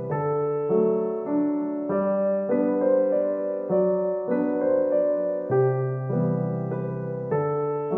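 Background piano music: slow, gentle chords and a melody, with notes changing about every half second.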